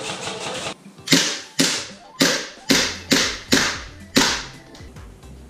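A run of about seven sharp cracks, roughly two a second, each fading out quickly, under a low steady hum that comes in partway through.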